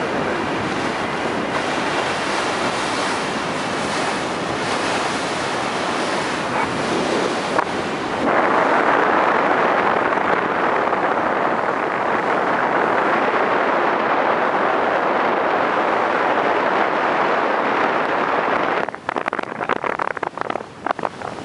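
Steady rush of wind and sea surf, with wind buffeting the microphone. It grows louder about a third of the way in and turns gusty and uneven near the end.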